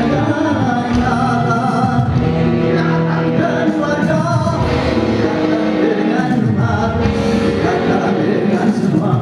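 A dangdut band playing live, with a man singing the lead over electric guitar and saxophone.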